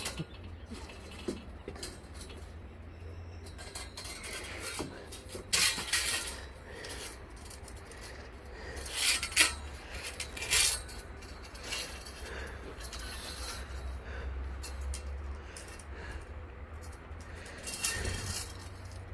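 Scattered metallic clinks, rattles and rubbing from a steel band blade being handled and fitted during a blade change on a portable band sawmill, with the loudest clanks in short clusters about six, nine to ten, and eighteen seconds in.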